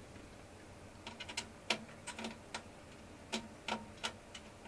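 Light, irregular plastic clicks as a two-pin cable plug is turned against its socket to line up the pins and pushed in.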